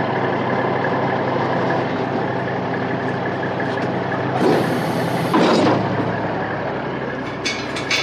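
Heavy truck's diesel engine idling steadily, with a short sharp hiss of released air about four and a half seconds in and a second noisy burst just after, then a few clicks near the end.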